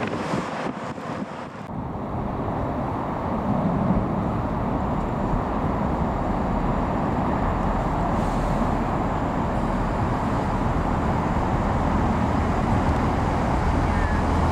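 A Networker Turbo diesel multiple unit drawing into the station, its low engine drone building over the last few seconds, over a steady road-traffic rumble. Wind buffets the microphone briefly at the start.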